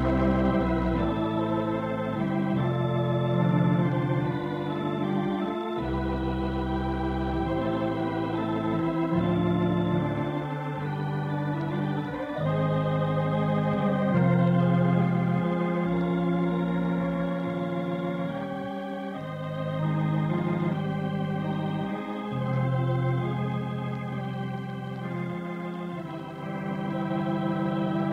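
Organ music: sustained chords that change every second or two.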